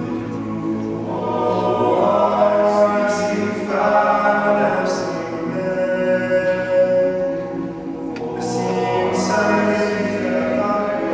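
All-male a cappella group singing sustained chords in close harmony, the chords changing every second or two, with a few short high hissing sounds over them.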